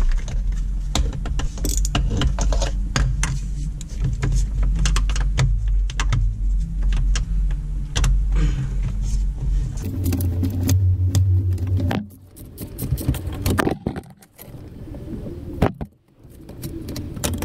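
Socket ratchet clicking in quick runs while the bolts holding the starter motor on a Sea-Doo 951 engine are undone, the clicks thinning out over the last few seconds. A low steady hum runs underneath.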